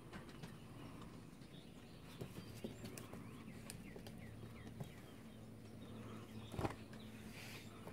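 Puppy's claws tapping and pattering faintly on wooden deck boards as it walks about, with one louder knock about six and a half seconds in.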